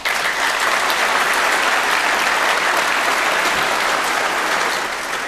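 Large audience applauding, with the clapping starting abruptly and then tapering off slightly.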